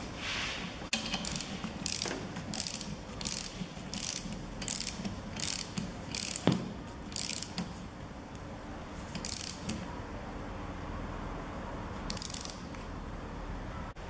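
Socket ratchet clicking in short bursts, about two strokes a second, as the 16 mm wiper-arm nut is run down onto its spindle. The clicking pauses past the middle, then comes back in two brief bursts near the end.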